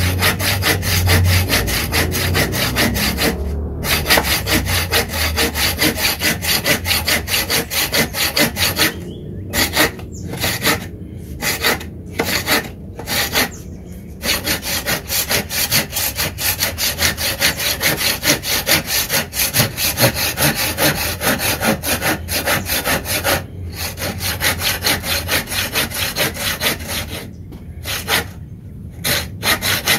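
Wipro folding saw cutting through a wooden block in quick back-and-forth strokes, a steady rasping broken by several short pauses.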